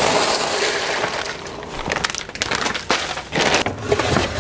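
Plastic food wrapping crinkling and rustling as it is handled, loudest in the first second or so. This is followed by scattered knocks and clatter as containers are shifted in a lower kitchen cabinet.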